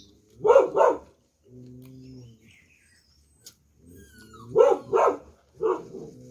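A dog barking: two barks in quick succession near the start, then three more about four and a half seconds in, with a lower, steady held tone between the two groups.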